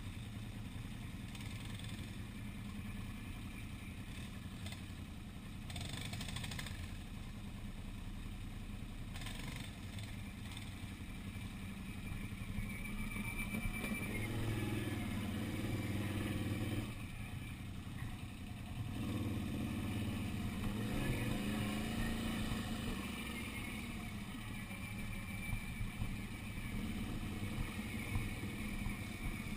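Quad bike (ATV) engine running on a dirt trail, its revs rising and falling in two louder stretches around the middle. A few short knocks near the end.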